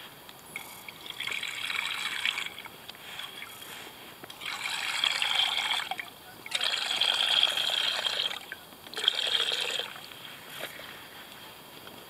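Water poured from a soft collapsible plastic bottle into a small camping pot, splashing and trickling in four spurts of a second or two each, with short pauses between them. The pot is being filled to boil water for coffee.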